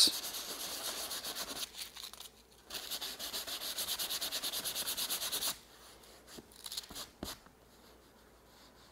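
Hand-sanding cured leather filler on a leather seat with 500-grit sandpaper, knocking down a slightly raised filled patch before dyeing. It makes quick back-and-forth rasping strokes, about five a second, with a brief pause about two seconds in. The strokes stop about five and a half seconds in, followed by a couple of faint taps.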